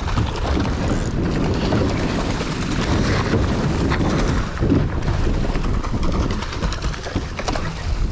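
A boat under way on open water, its noise mixed with heavy wind buffeting the microphone.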